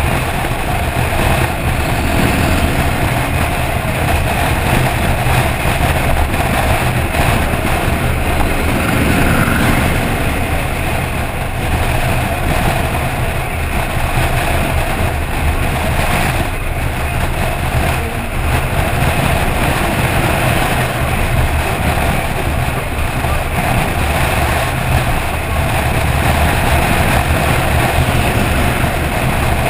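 Steady rush of wind and road noise from a car travelling at motorway speed, heard on a camera mounted outside the car body, with a constant low rumble underneath.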